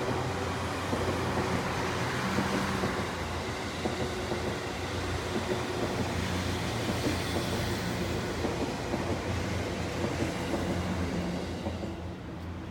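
JR Chuo Line electric train running past, with wheels clacking over the rail joints at an even rhythm and a steady low hum, dropping away near the end.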